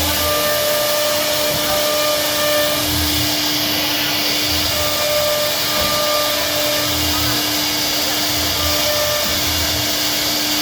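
CNC router machine running while it carves wood: a steady, loud whirring with a constant hum, and a higher tone that starts and stops every second or two as the machine moves.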